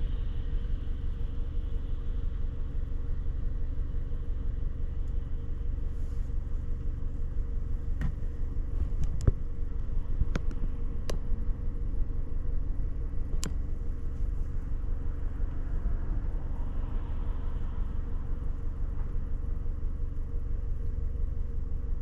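Steady low rumble of road traffic and a vehicle running, with about five sharp clicks between about eight and fourteen seconds in.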